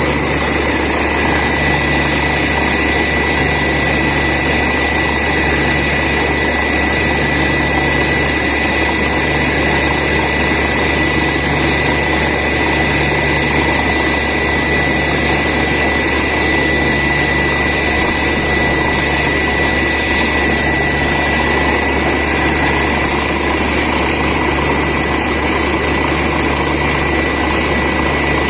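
Borewell drilling rig and its air compressor running steadily, with a constant high whine over the engine noise and a low throb that pulses on and off about every second and a half.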